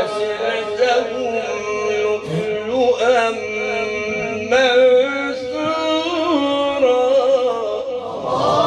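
A male Quran reciter sustains a long, melismatic melodic line in mujawwad style through a microphone, his voice wavering and gliding in ornamented turns. Near the end a short rush of noise rises under it.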